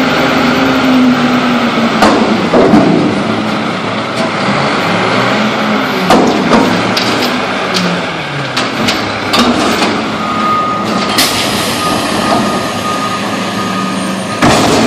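Mack front-loader garbage truck dumping a steel dumpster: the diesel engine revs to drive the hydraulic lift arms and drops in pitch, while the raised container bangs and clanks several times as it is emptied. A steady thin whine comes in partway through, and a loud bang comes near the end as the dumpster is handled back down.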